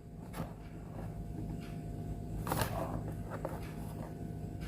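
A few faint, short clicks and rustles over a low steady hum, typical of small plastic Lego minifigure pieces being handled.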